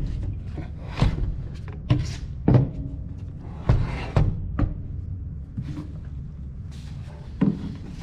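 Hard plastic blower tubes knocking and clicking as the lower tube of a Worx WG584 leaf blower is detached and handled, a series of separate knocks over a steady low hum.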